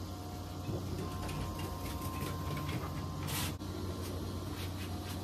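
Scattered light clicks, knocks and creaks of hands working at a gas griddle's controls while setting it up to light, with a brief rustle about three and a half seconds in, over a steady low hum.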